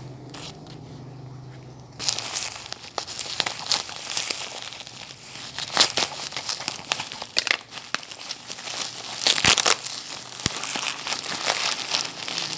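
Plastic packaging being crumpled and crinkled by hand as a parcel is unwrapped, starting about two seconds in, with many sharp crackles.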